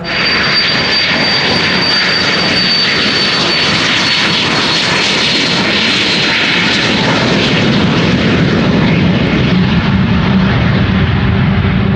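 Business jet's engines running: a loud rush with a high steady whine that fades after about six seconds, while a low hum grows stronger.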